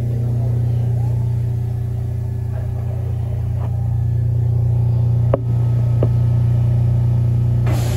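Yoro Railway 600 series electric train heard from inside the carriage while running: a steady low hum, with two sharp clicks a little after five and six seconds in. Near the end the hum cuts off suddenly and a brighter hiss takes over.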